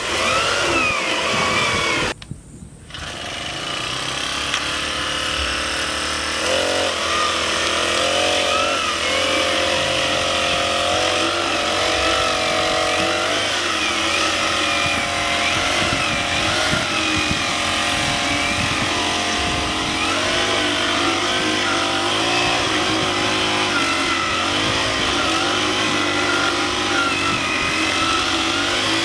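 Small engine of a backpack brush cutter converted into a rotary paddy weeder, running steadily under load, its pitch rising and falling as it works through the weeds between rice rows. The sound dips out briefly about two seconds in, then comes straight back.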